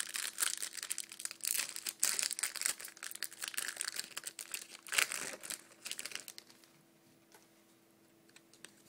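A trading-card pack wrapper crinkling and tearing as it is ripped open by hand, busy for about the first two-thirds. After that only faint rustling and small ticks of the cards being handled remain.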